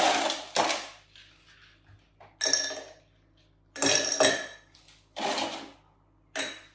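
Ice cubes dropped by hand into a highball glass, clattering and clinking against the glass in four short bursts a little over a second apart.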